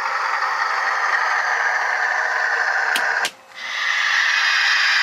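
Diesel engine sound from a SoundTraxx Tsunami decoder, played through the small speaker of an HO-scale diesel locomotive model. It is a steady drone with little low end. About three seconds in there are two clicks and a brief drop-out, then the engine sound resumes.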